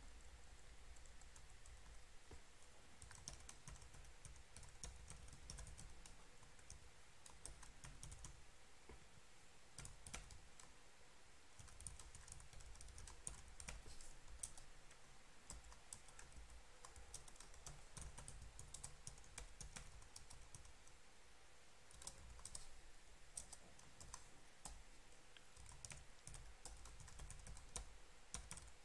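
Faint typing on a computer keyboard, in bursts of quick key clicks separated by short pauses.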